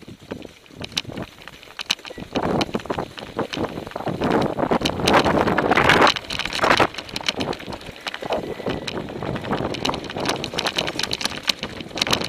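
A mountain bike descending a loose, rocky trail: the bike and tyres rattle and clatter over the stones in many quick, sharp knocks. Wind rushes over the microphone and builds to its loudest about five to six seconds in.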